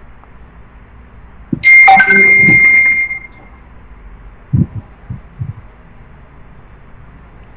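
A sudden loud bell-like chime about a second and a half in, one high tone held over several lower ones and fading out over about a second and a half, followed by a few soft knocks.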